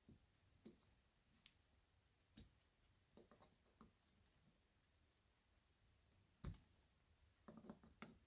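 Faint, scattered clicks and light taps of small metal carburetor parts and hand tools being handled, with one sharper knock about six and a half seconds in.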